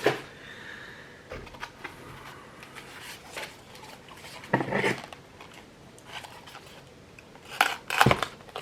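Handling noises of hot sauce bottles and their packaging being picked up and set down: scattered light knocks and clicks, with a couple of louder clunks about halfway through and near the end.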